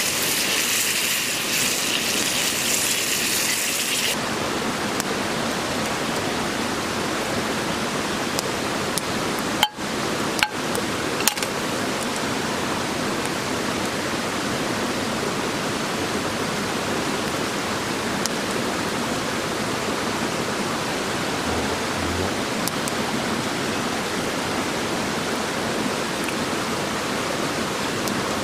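Food frying in a skillet over a campfire, sizzling with a bright hiss for about four seconds. Then a steadier, duller rushing hiss continues, broken by a few sharp clicks about ten seconds in.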